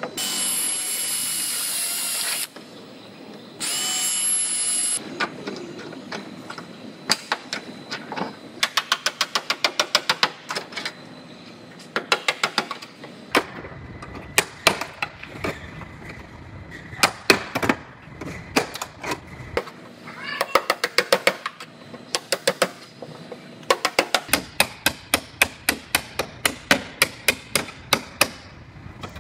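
A high-pitched power tool runs twice briefly in the first five seconds. Then a ball-peen hammer strikes a flat chisel in quick runs of sharp metallic taps, driving it into the seam to split the old quarter panel from the car body.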